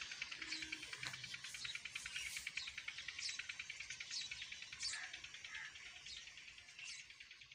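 Insects chirring steadily with a fast, even pulse, while a bird repeats short downward-sweeping calls every second or so.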